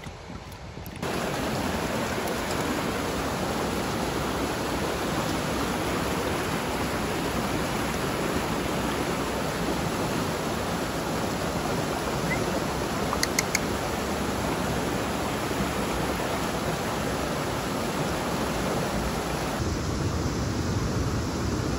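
Steady rush of a mountain stream flowing over rocks, with a few faint short ticks around the middle. Near the end the sound drops to a lower, heavier steady rush.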